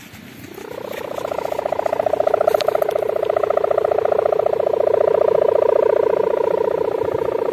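Sendaren (kite hummer) droning in the wind: a loud, pulsing buzz that swells up over the first two seconds and then holds steady, the bulldozer-like sound this hummer is set up for.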